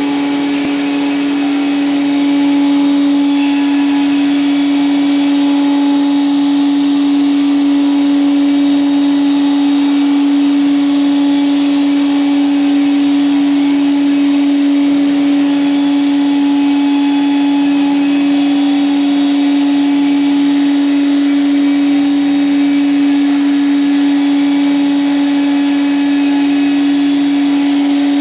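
Bacci CNC woodworking machine running steadily: a constant, unchanging hum with an even hiss over it.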